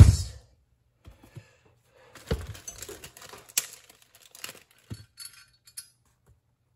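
Chrome sissy bar and its padded backrest being handled and fitted together: a thump right at the start, then scattered metallic clinks, knocks and rustling, busiest from about two to four and a half seconds in.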